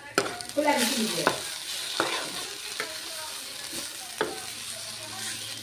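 Metal spoon stirring and scraping greens frying in a non-stick kadai, with a handful of sharp knocks of the spoon against the pan over a steady sizzle.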